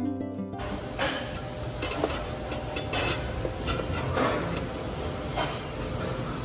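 Factory machinery running with a steady hum and irregular sharp metallic clacks and knocks, about one a second.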